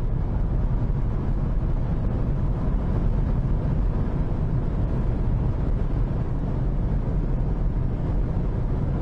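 Cabin noise of a Volkswagen Passat B8 with a 2.0 TDI diesel at motorway speed, gaining from about 215 to 230 km/h. A steady low rumble of road, wind and engine.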